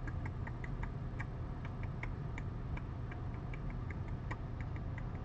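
A quick, irregular run of light clicks, about four or five a second, over a steady low hum.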